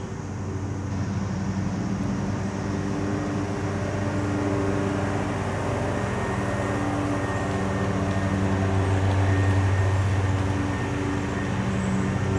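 Lawn mower engine running steadily, a low drone that gradually gets louder and dips briefly near the end.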